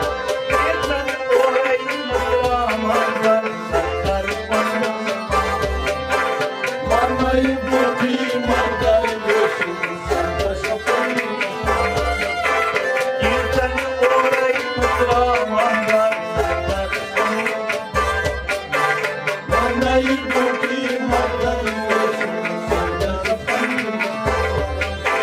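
Kashmiri folk ensemble: a tumbaknari (clay goblet drum) beats a steady rhythm under sustained harmonium chords and stringed rabab-type lutes.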